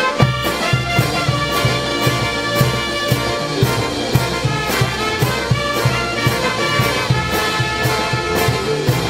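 Brass band playing: trumpets, trombones, baritone horns and sousaphones over a bass drum, snare drums and clashed hand cymbals keeping a steady beat of about two strokes a second.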